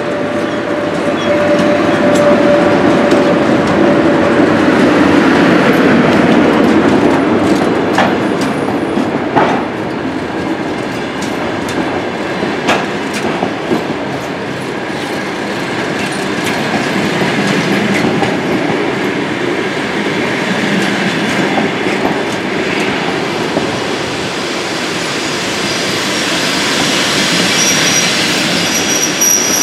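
A passenger train arriving behind a ChS8 electric locomotive, with the locomotive and then the coaches rolling past. The wheels clatter, with a few sharp clicks over rail joints, and a high-pitched wheel squeal sets in near the end.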